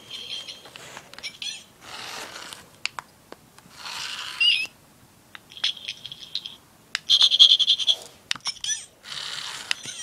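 Bursts of high, rapidly pulsed chirping from a small animal, twice in the second half, between short rustling noises of paper pages being handled.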